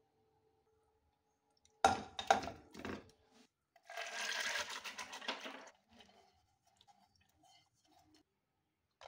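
A few sharp knocks on metal, then soaked chana dal (split gram lentils) poured from a steel bowl into a metal pressure cooker over raw chicken: a dense pattering rattle for about two seconds, followed by a few scattered small clicks.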